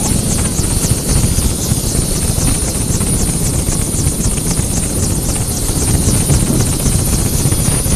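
Bell 407 helicopter running on the ground: its turbine engine gives a steady high whine over the continuous low, rapidly pulsing rumble of the turning rotor.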